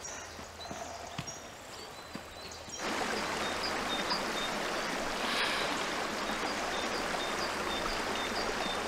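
Rushing water, a stream or weir, cutting in suddenly about three seconds in and holding steady, with small birds chirping over it.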